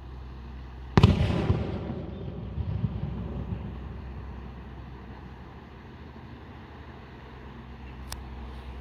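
A firework shell bursts about a second in with a sharp boom, followed by a low rolling rumble that dies away over a few seconds. A small crack sounds near the end, over a steady low hum.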